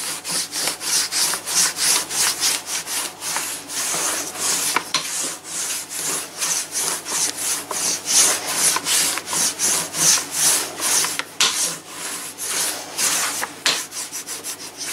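Rolling pin rolled back and forth over pizza dough on a floured wooden table: a rhythmic rubbing, a few strokes a second.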